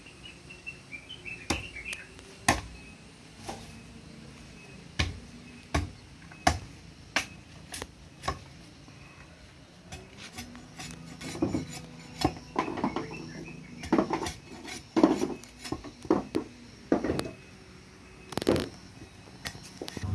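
Irregular sharp knocks of a tool striking bamboo as a bamboo ladder's rungs are fitted, single knocks at first, then quicker clusters of blows in the second half.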